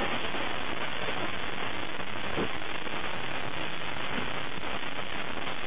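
Steady static hiss from a home security camera's microphone, with a few faint short sounds over it.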